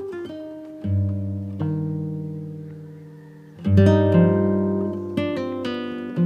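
Background music: plucked acoustic guitar, notes struck and left ringing, with fresh chords about a second in and again near four seconds.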